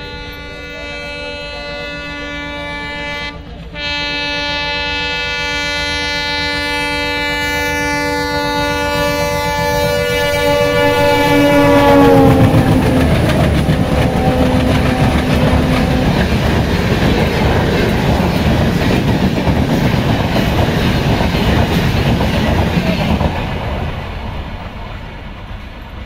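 WDM-3D diesel locomotive's horn blowing one long blast, cut off briefly about three and a half seconds in, dropping in pitch as the train passes about twelve seconds in. The train's rumble and wheel clatter follow, then fade near the end.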